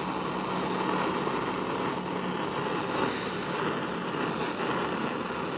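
Gas soldering torch flame burning steadily as it heats a silver buckle from underneath to melt multiple solder joints, with a short higher hiss about three seconds in.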